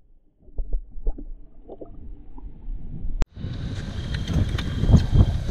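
Muffled underwater sound from the camera, a low rumble with a few soft bubbling knocks, for about three seconds. It cuts off abruptly and gives way to wind blowing across the microphone on the boat, with heavy gusts about five seconds in.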